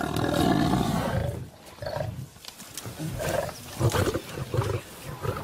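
Cape buffalo bellowing in distress while pinned down by lions and not yet killed, likely mixed with the lions' growls. One long call over the first second and a half, then a run of shorter calls.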